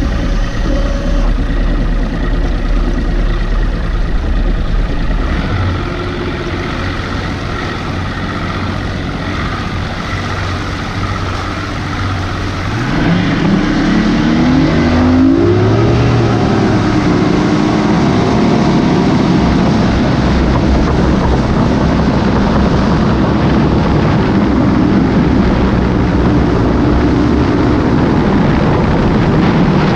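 Mercury Optimax direct-injection two-stroke outboard motor pushing a bass boat, running at a lower speed at first. About halfway through it is throttled up, its pitch rising, then it runs steadily at speed with wind and water rushing past.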